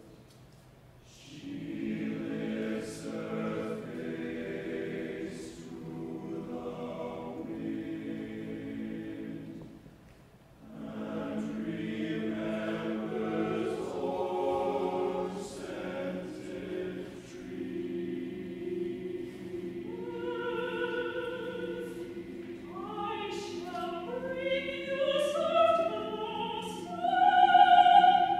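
Men's chorus singing a slow choral elegy in long held phrases, with brief breaks at the start and about ten seconds in. About twenty seconds in, a solo soprano enters high above the men's sustained chords and grows louder toward the end.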